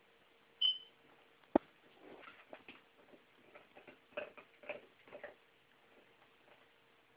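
Small dog chewing and gnawing at a toy: a brief squeak about half a second in, a sharp click, then a run of soft clicks and rustles.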